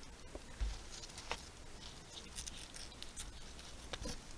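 Faint, scattered crackling and rustling from moist worm-bin bedding, with a few sharper ticks and a soft low bump about half a second in.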